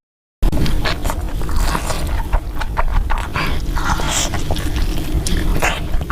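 Loud close-miked eating, with chewing and crunching made up of many quick sharp clicks over a heavy low rumble.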